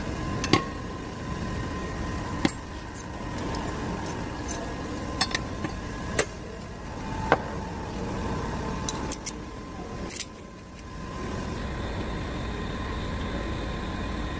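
Drill bit sharpening machine running with a steady hum and a thin whine while a 9.5 mm HSS drill bit is sharpened, with sharp metallic clicks every second or few as the bit and its holder are handled.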